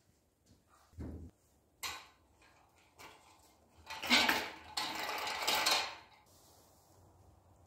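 A few wooden knocks as the table saw stand is tipped, then about two seconds of loud metallic clattering and scraping from a steel wheeled mobile base being pushed across a concrete floor.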